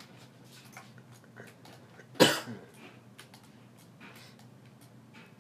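A person coughs once, sharply, about two seconds in. Faint clicks of a computer mouse and keyboard are scattered through the rest.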